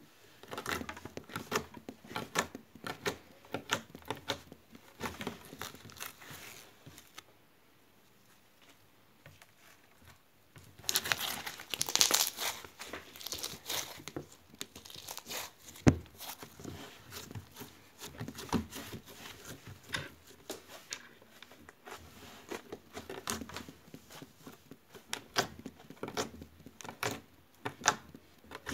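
Hands kneading and pressing a lump of slime: irregular sticky crackles and small pops. There is a quiet pause about a third of the way in, a denser burst of crackling just after, and one sharp snap about halfway through.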